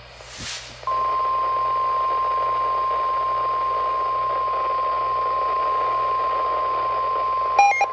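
NOAA Weather Radio 1050 Hz warning alarm tone, the signal that an alert message follows, here a special marine warning. A short burst of static comes first, then the single steady tone starts about a second in and holds. A brief higher beep sounds near the end.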